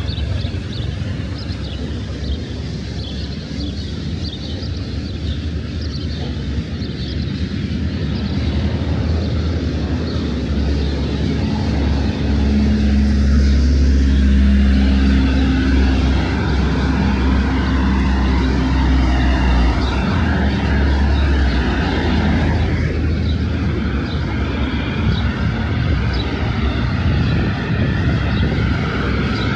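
Steady low engine drone of an aircraft, growing louder about twelve seconds in and holding there.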